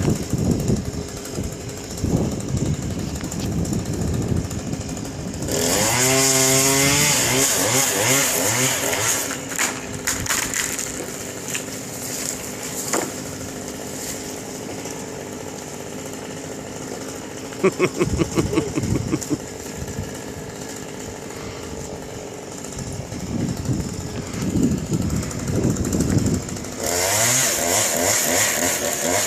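Chainsaw running, revving up sharply about six seconds in and again near the end, with lower, steadier running in between. A brief run of rapid clicks comes about eighteen seconds in.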